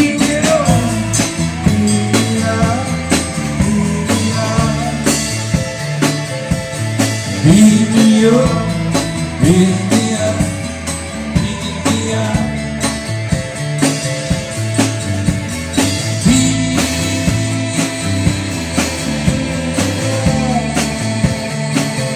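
Live rock band playing a passage without transcribed words: a steady drum-kit beat under bass guitar and electric and acoustic guitars.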